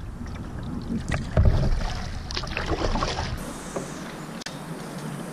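A canoe being paddled with a double-bladed paddle: a few water splashes and drips as the blades dip, over steady wind and water noise. About three and a half seconds in, this gives way to a quieter steady background with a single faint click.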